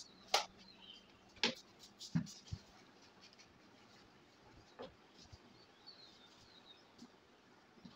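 A few short clicks and knocks as hands handle a cardboard frame with a roller on a metal rod, four in the first five seconds, the loudest just after the start. Faint high chirps near the end.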